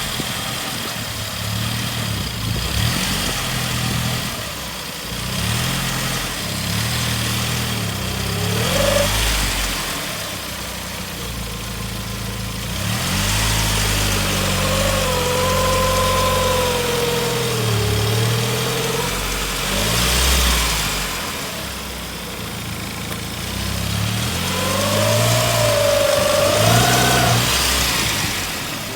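A 2002 Saab 9-5 Aero's engine running, with an extra whining tone that wavers up and down in pitch over it: briefly about nine seconds in, for several seconds around the middle, and again near the end. This is the unexplained noise that comes when reversing or driving up a kerb, together with a smell of something burning or rubbing.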